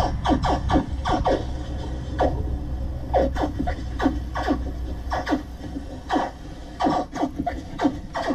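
Suzuki outboard motor running steadily as the boat travels. Over the motor comes a string of short scraping swishes that fall in pitch, two to three a second and unevenly spaced.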